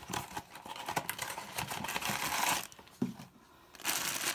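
Hands opening a cardboard blind box and crinkling a black foil bag that holds a small vinyl figure: rustling and crinkling with small clicks, a short lull about three seconds in, then steady crinkling again near the end.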